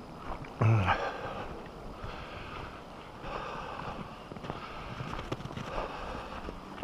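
Footsteps and wind noise on the microphone during a walk, with one short, low voiced sound less than a second in.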